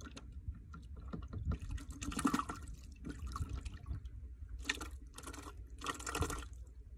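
Water splashing in several short bursts, over a steady low rumble.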